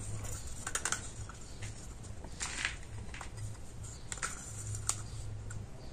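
Wooden stirring stick tapping and scraping against a small plastic cup and a glass tumbler while two-part silicone rubber is scraped out and mixed: irregular light clicks and a few short scrapes.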